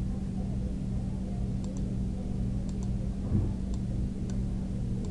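Steady low electrical hum over background rumble, with several faint mouse clicks, some in quick pairs.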